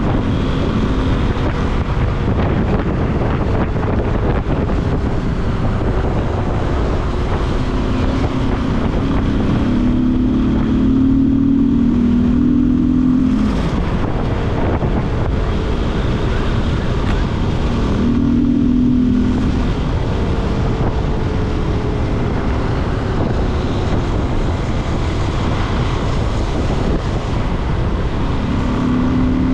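Yamaha Lander 250's single-cylinder four-stroke engine running under way, its note swelling several times as the throttle opens, under a heavy rush of wind over the microphone.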